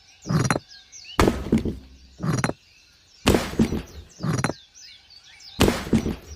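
A run of heavy knocks or chops, about one a second, alternating between a sharp, full strike and a duller one, with faint bird chirps behind.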